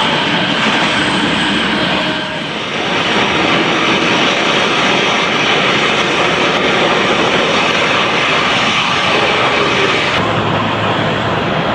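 Jet aircraft engines running loud: a steady, dense rush with faint whining tones through it. There is a brief dip about two seconds in, and the sound changes abruptly about ten seconds in, losing its highest hiss.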